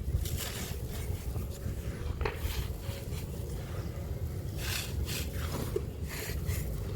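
A crumbly, dusty yellow block being crumbled and rubbed by hand: soft crunching and scraping in several short bursts, over a steady low rumble.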